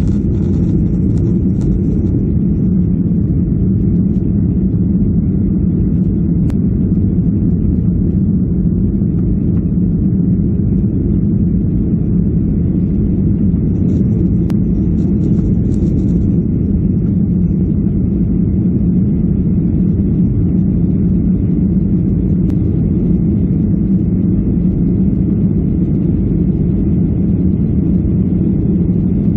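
Jet airliner's engines heard from inside the cabin during the climb after takeoff: a steady, low-pitched drone that does not change.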